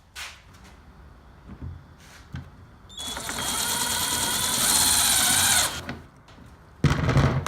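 Cordless drill with a Phillips bit driving a self-tapping screw into the bin, running steadily for about three seconds, getting slightly louder, then stopping. A short low thump comes near the end.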